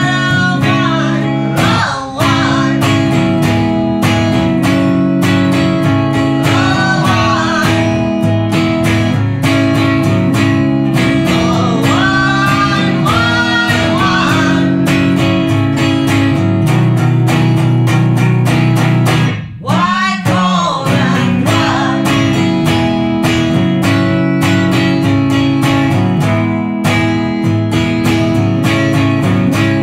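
A slow blues song played live: a woman singing over a strummed acoustic guitar, her sung phrases coming at intervals between stretches of guitar. The guitar breaks off briefly twice, near the start and about twenty seconds in.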